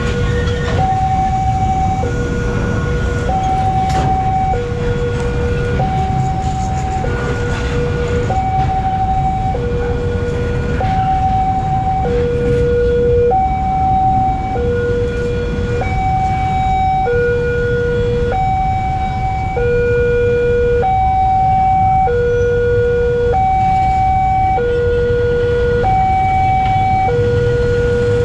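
Level-crossing warning alarm sounding its two-tone signal: a high and a low tone taking turns, each held a little over a second. Under it runs the steady rumble of a container freight train's wagons rolling past on the track.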